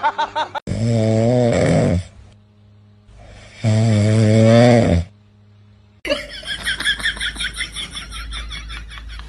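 Two loud snores, each about a second and a half long, with a short quiet gap between them. About six seconds in, light plucked music starts.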